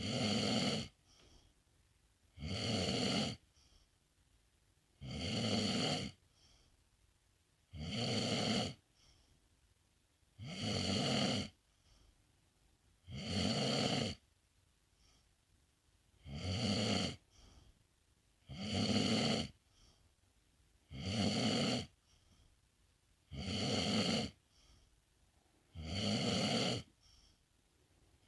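A sleeping pet snoring in slow, even breaths: about eleven snores, one roughly every two and a half seconds, each about a second long.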